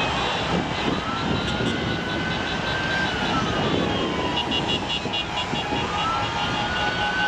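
Din of gridlocked city highway traffic with car horns, and a siren wailing slowly up and down twice.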